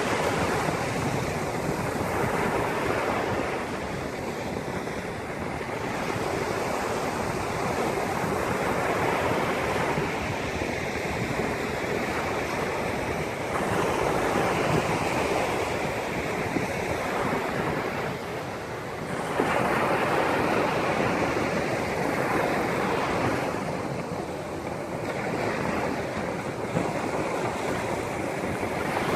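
Sea waves breaking and washing on the shore, a continuous rushing surf that swells and eases every few seconds.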